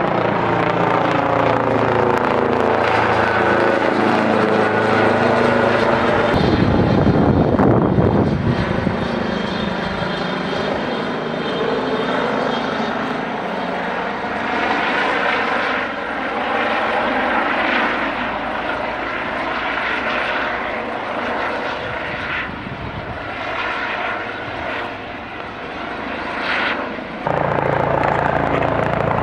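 Eurocopter EC135 air ambulance helicopter flying overhead as it comes in to land: a steady rotor and turbine drone whose pitch slides up and down as it passes. It is loudest about eight seconds in, and turns abruptly louder near the end.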